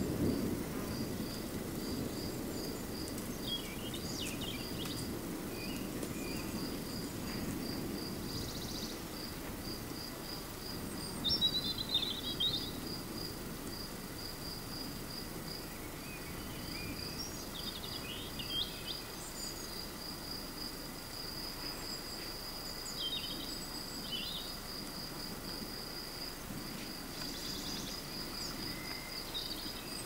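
A cricket or bush-cricket keeps up a steady, evenly pulsed high chirping, with scattered short bird calls. Underneath is a low rumble, with thunder dying away in the first moment as a storm approaches.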